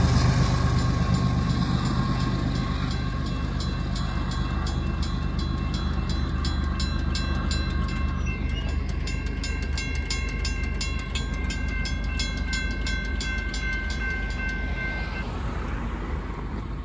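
Grade-crossing bells, a WCH mechanical bell and a General Signals Type 2 electronic bell, ringing in a steady rapid rhythm and stopping about a second before the end. Under them the low rumble of a departing freight train slowly fades.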